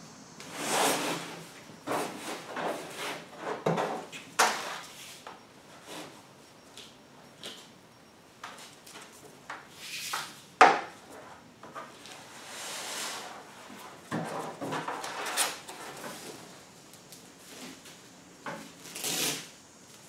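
Handling noises as a soft fabric cooler bag is set on a rigid foam board and a strap is pulled around it: fabric rustles, scrapes and swishes of the strap, with scattered clicks and one sharp click about halfway through.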